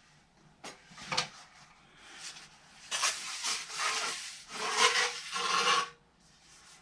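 Sections of a Tubertini fishing pole being handled and pulled apart: a couple of light knocks, then the pole sections rubbing and scraping against each other for about three seconds.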